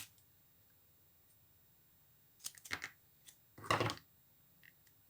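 Short, crisp cutting sounds as excess modelling clay is trimmed away, in two brief clusters about two and a half and nearly four seconds in, with a few faint ticks between.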